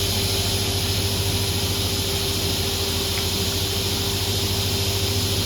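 Steady machine hum with a constant hiss and a held tone, unchanging throughout: the even running noise of workshop machinery.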